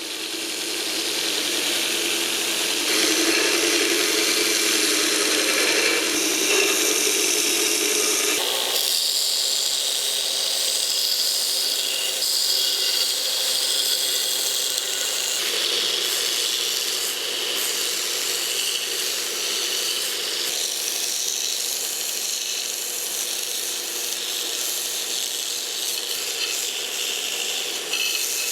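A power tool grinding steadily, its tone shifting a few times as the work changes.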